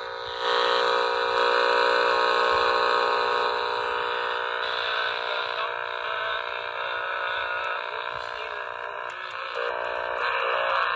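The small speaker of a home-built CF210SP AM/FM radio kit playing whatever it picks up while it is being tuned: a loud, steady sound that jumps louder about half a second in.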